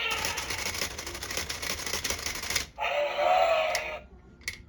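Electronic sound effects from a toy remote-control lizard through its small speaker: a rasping noise with fast clicking for about two and a half seconds, then a short wavering call about three seconds in. A few light clicks follow near the end.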